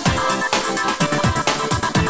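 Electronic dance music with a steady beat of deep kick drums under a synth melody.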